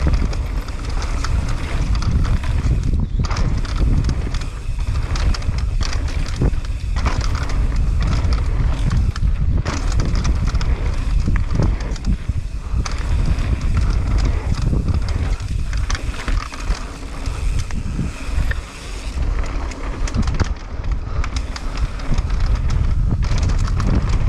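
Mountain bike riding fast down a dirt trail: wind buffeting the microphone over the hum of knobby tyres on dirt, with frequent knocks and rattles from the bike over bumps and jumps.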